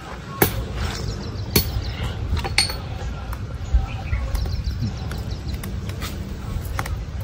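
Handling sounds of marinated chicken pieces being threaded onto a bamboo skewer: a few sharp clicks and knocks, four in the first four seconds, over a steady low rumble.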